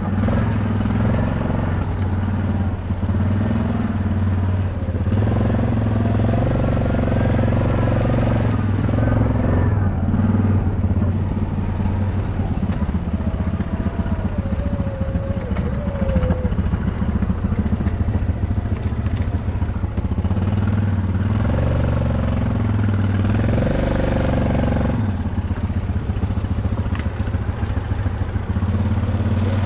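Dirt bike engine running under way, its pitch stepping up and down repeatedly as the throttle opens and closes.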